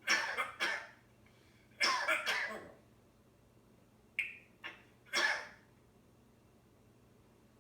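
African grey parrot imitating a human cough: a run of short coughs and throat-clearing sounds in several groups over the first five or so seconds.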